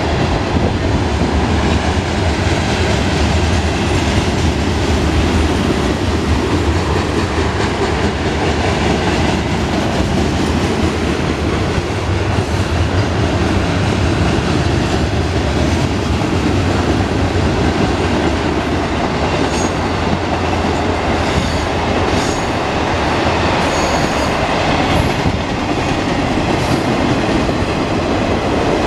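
Freight cars of a Union Pacific mixed freight train rolling past: a steady heavy rumble and rattle of steel wheels on the rails. Short high wheel squeals come now and then in the second half.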